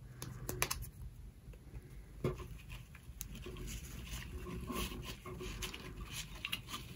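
Light handling noise: a linen drawstring bag being loosened and pulled open among shredded paper filler, with scattered small clicks and soft rustles.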